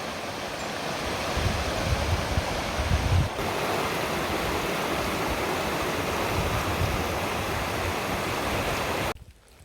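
Flowing water rushing steadily, with a few low rumbles in the first few seconds; it cuts off abruptly near the end.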